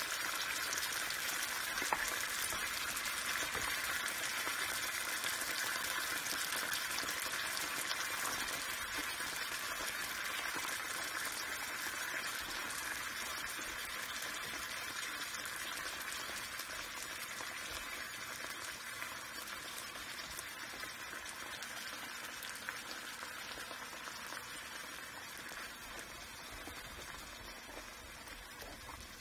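Beans simmering in their liquid in a nonstick frying pan: a steady bubbling sizzle that slowly grows quieter, with a single sharp click about two seconds in.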